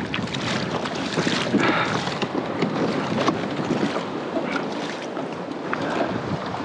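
Sea water lapping and splashing against a kayak's hull, with wind buffeting the microphone; an irregular patter of small splashes over a steady rush of noise.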